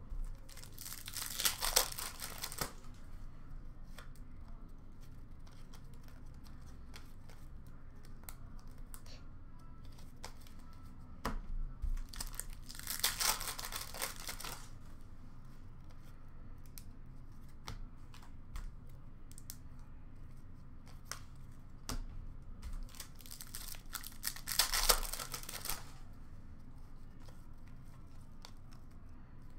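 Packs of 2005-06 Upper Deck Ice hockey cards being torn open by hand: three rips of about two seconds each, roughly eleven seconds apart, with faint clicks of cards being handled in between.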